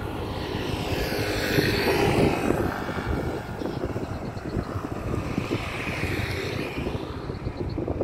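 Jet airliner going past, its engines a loud, steady rush whose tone sweeps down and then back up.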